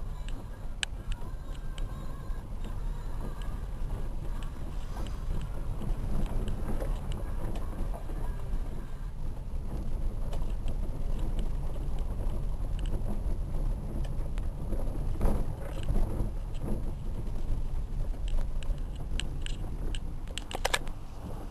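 Dacia Logan driving down a rough unpaved mountain road: a steady low rumble of engine and tyres, with scattered clicks and knocks from gravel and the car jolting over the track.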